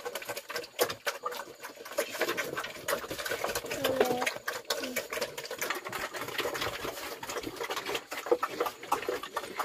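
Pigs eating wet cooked bran from a trough: rapid, irregular smacking and chomping clicks.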